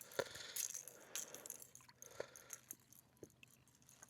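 Faint, scattered small clicks and taps from handling a turtle to work a fishing lure's hook free in a kayak.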